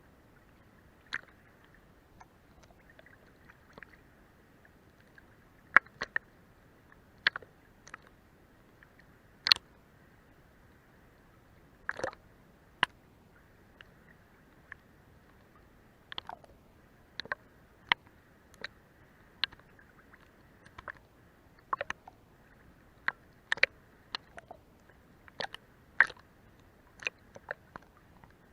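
Seawater lapping under a boat's hull: irregular small slaps and plops, a few every couple of seconds, over a faint steady wash.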